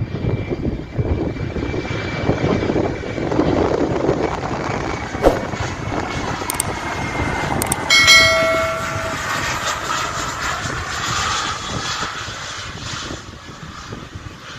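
Jet noise from a Boeing 737-524's CFM56 turbofans: a steady rumble with a high whine that fades over the first several seconds. About eight seconds in, a short, higher pitched tone with overtones sounds over it.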